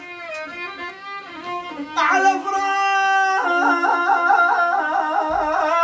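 Violin playing a folk melody: softer for about two seconds, then louder with a long held note followed by a quick, wavering ornamented figure.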